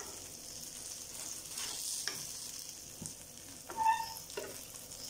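Oil sizzling steadily under sago and raw banana cutlets shallow-frying in a nonstick pan, with a few light scrapes of a spatula against the pan and a short tone about four seconds in.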